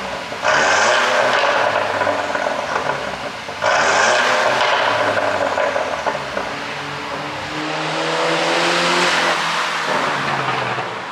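Mercedes-Benz C200 turbocharged four-cylinder engine, ECU-tuned for exhaust pops, revved in sharp blips about half a second and three and a half seconds in, then a slower rev that climbs around eight seconds in and falls away near the end.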